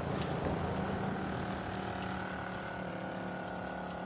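Mountain bike drivetrain clicking and whirring steadily as the bike is ridden on a paved road.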